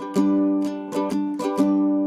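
Music: chords strummed on a plucked string instrument, about four strums, each left ringing.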